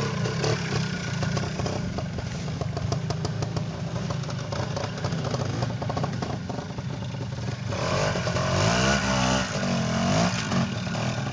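A classic trials motorcycle engine running at low revs as the bike descends a steep muddy section. About eight seconds in it revs up and down in short blips as the rider climbs out over a bank.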